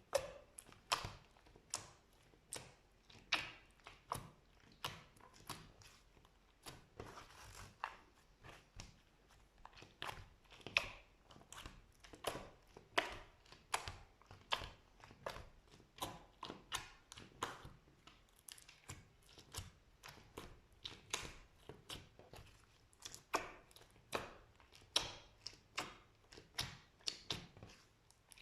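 Slime being worked, giving a steady run of sharp, crisp clicks and crunches at an uneven pace of about one or two a second.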